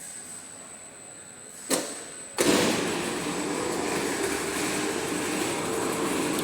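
Snack-extrusion plant machinery: after a faint hum and a single click, loud steady machine noise with a low hum cuts in suddenly about two and a half seconds in and keeps running.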